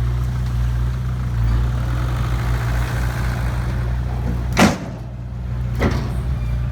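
Heavy truck engine running steadily at a low idle, with a sharp burst of noise about four and a half seconds in and a smaller one near six seconds.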